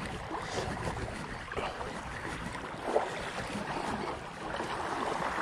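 Wind buffeting the microphone over calm sea water washing against the rocks, with one brief louder sound about three seconds in.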